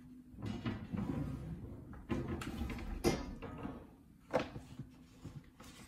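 Handling noises: rustling and shuffling with a few sharp knocks, the loudest about three seconds in and another just after four seconds.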